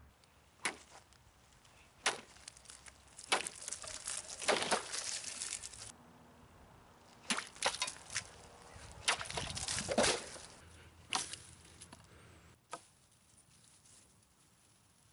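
Hand-forged steel kukri chopping: about a dozen sharp strikes spread through the stretch, with a rustle lasting a second or two around some of them, as the blade cuts into evergreen branches and a plastic jug.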